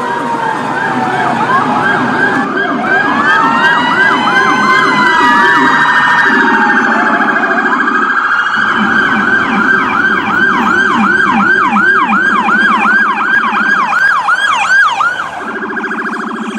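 Electronic emergency-vehicle sirens sounding together: a fast yelp sweeping up and down about two and a half times a second, crossed by slower wailing glides, over a lower pulsing tone. The fast yelp stops near the end, leaving the lower tone.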